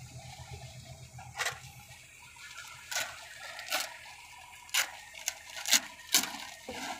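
Boots stepping and scraping on the steel frame of a Horsch planter while climbing onto it: about eight irregular sharp knocks and clanks, the loudest near the end.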